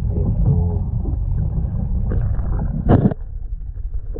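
Low, muffled rumble of water moving in a boat's live-bait well, with one sharp knock about three seconds in.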